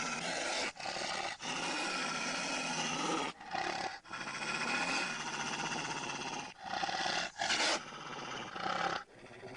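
A large animal growling and roaring in a string of long, rough bursts separated by short breaths.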